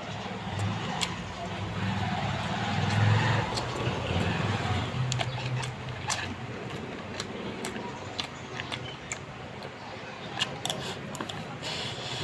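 Chewing on fried chicken wings: many short sharp clicks and crunches. For the first few seconds they sit over a low rumble of passing traffic.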